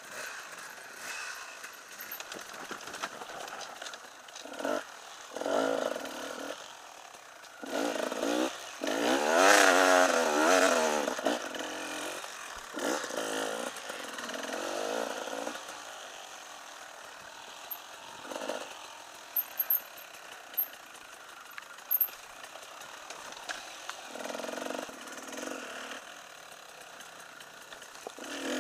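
Enduro motorcycle engine revving up and down in bursts as it is ridden over rough trail. The loudest rise in revs comes about ten seconds in, and the engine runs lower and steadier for a stretch in the second half.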